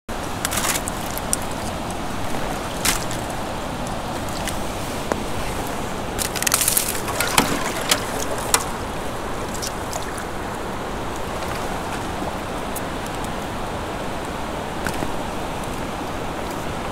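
Steady rush of a partly frozen creek's running water, with scattered sharp clicks and crackles in the first half, the loudest cluster about six to nine seconds in.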